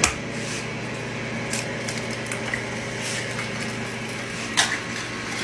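An egg frying in a pan: a steady sizzle over a low hum, with a few sharp taps, the loudest near the end.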